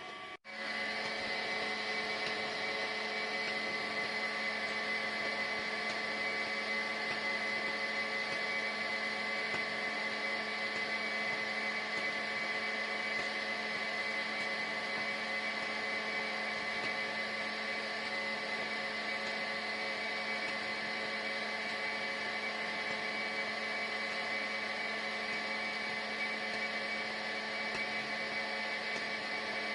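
Steady machine hum with several fixed tones over a hiss, unchanging throughout, cut off briefly just after the start.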